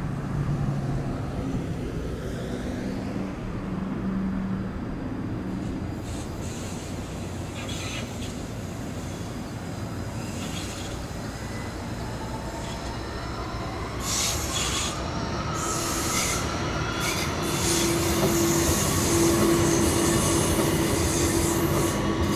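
Light-rail tram running round a tight curve past the listener, with a steady electric motor whine and squealing wheels that grow louder in the second half.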